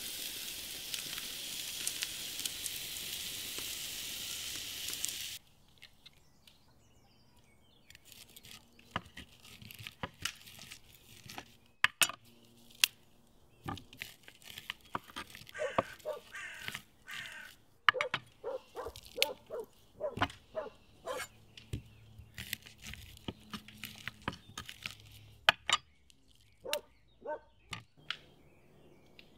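Meat and peppers sizzling on a grill over an open fire, cut off abruptly about five seconds in. Then a knife chops through corn cobs on a wooden cutting board, giving sharp knocks at irregular intervals.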